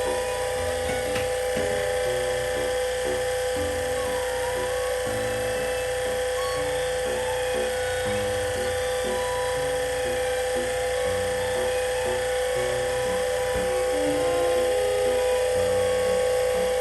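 Electric motor of the air-conditioner cleaning equipment running steadily with a constant high whine.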